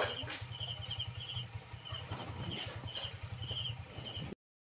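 Crickets chirping in short repeated pulse groups over a steady high insect trill, with a low steady hum beneath. The sound cuts out briefly near the end.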